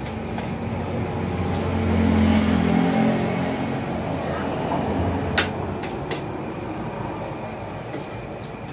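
A low engine-like hum swells about two seconds in and fades away, like a passing vehicle. Spoons and forks tap against plates a few times as people eat.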